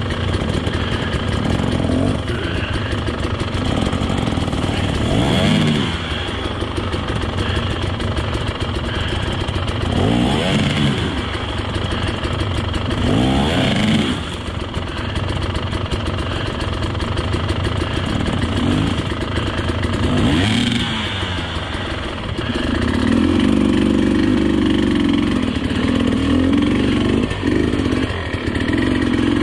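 Dirt bike engines chugging at low revs on a steep rocky climb. The revs rise and fall in short throttle bursts a few times, then run steadier and louder over the last several seconds.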